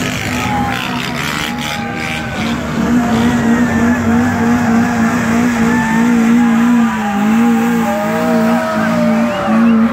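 A car engine held at high revs with a steady, slightly wavering pitch while its tyres squeal, typical of a burnout or hard launch.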